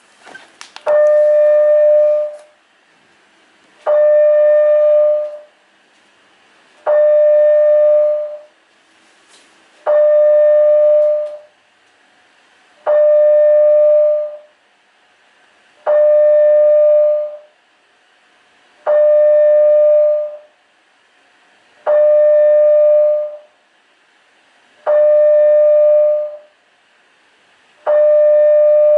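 Apartment building fire alarm sounding: a loud, steady horn-like tone of about a second and a half, then a pause of the same length, repeating evenly about every three seconds, ten times over. A few faint clicks come just before the first sounding.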